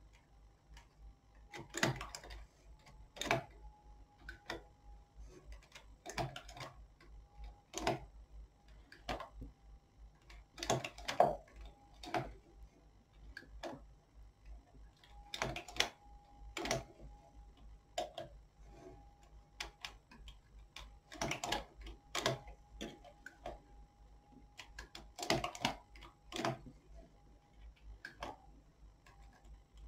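Small metal clicks from a domestic knitting machine's needle bed as stitches are bound off by hand with a transfer tool, one stitch at a time. The clicks are irregular, mostly one every second or two, sometimes two close together.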